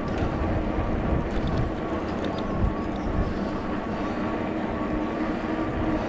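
Cyrusher Trax fat-tyre e-bike on the move: a steady rumble of tyres and wind, with an even motor whine on top.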